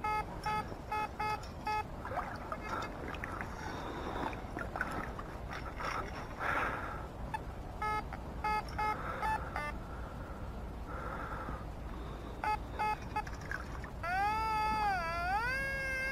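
Metal detector giving target signals over a buried object: runs of short, even beeps at about four a second, repeated three times as the coil is swept back and forth. Between them water sloshes and gurgles as the lake bottom is worked, and near the end a wavering tone glides up and down in pitch.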